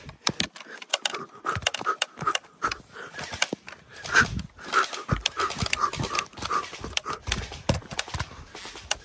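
Footsteps crunching through twigs and dry leaves on a woodland trail: a steady run of snaps and crackles.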